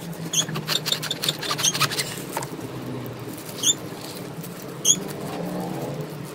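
A knife cutting through a crusty French bread roll, the crust crackling in a quick run of small crunches over the first two seconds, with plastic-gloved hands handling the sandwich. Three short high squeaks come through, one near the start and two a little past the middle.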